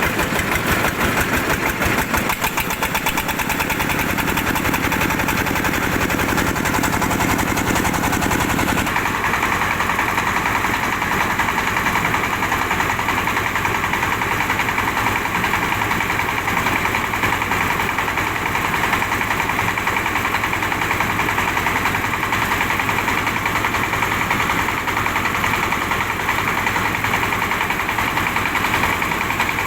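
Diesel engine of a mobile rice huller running steadily. About nine seconds in, the sound changes abruptly to a smoother, higher rushing noise.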